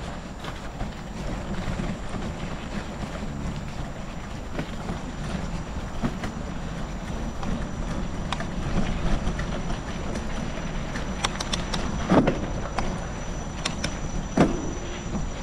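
Bicycle on a rough gravel track: steady rolling noise with rattling, and a few sharp knocks near the end, two of them louder.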